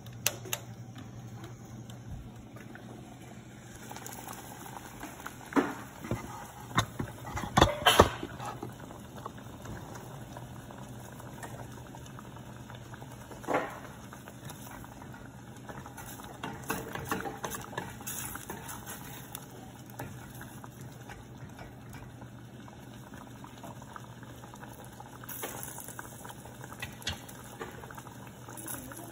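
Thick curry sauce simmering and bubbling in a stainless steel pot over a gas flame, over a steady low hum. A cluster of loud knocks comes about six to eight seconds in, and the sauce is stirred with a wooden spatula around the middle.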